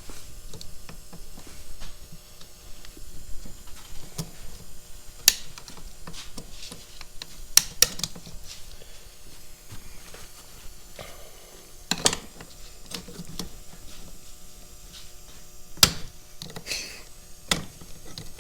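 Scattered sharp metallic clicks and knocks, about six spread through the stretch, from hand tools working on a tractor's PTO shaft and bearing assembly during teardown, over a faint steady hum.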